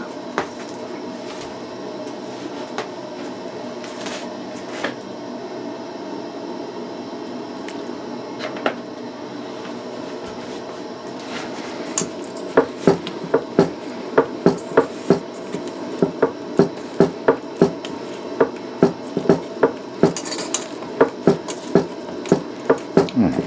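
Hands mixing and working soft dough in a stainless steel bowl, the bowl knocking on the wooden tabletop. From about halfway in, the knocks come steadily, two or three a second, over a low steady hum.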